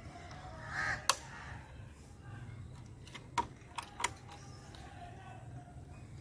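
Four sharp clicks from a motorcycle's handlebar light switches being flicked to work the lights: one about a second in, then three close together between three and four seconds in.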